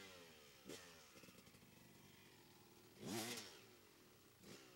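Dirt bike engine running and being revved in short blips: a quick rev about a second in, a bigger rev rising and falling back a little past halfway, and another short blip near the end.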